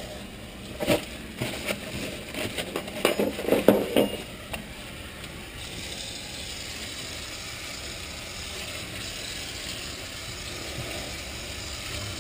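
Scrubbing in a stainless steel sink: a run of scuffs, knocks and crinkling for the first few seconds. Then, from about halfway, the kitchen faucet runs steadily, rinsing the scrubbed basin.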